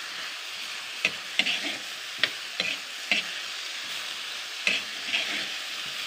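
Sliced bitter gourd with tomato and onion sizzling in oil in a wok while a spatula stirs and tosses it, with sharp clicks and scrapes of the spatula against the pan several times over the steady sizzle.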